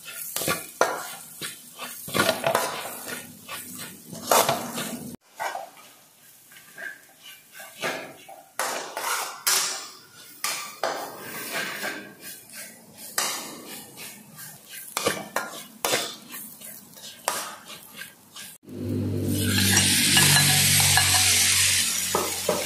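Metal spatula scraping and clanking against an aluminium wok in quick, irregular stirring strokes. From about 19 seconds in, a loud steady hiss takes over while frog pieces are in the wok.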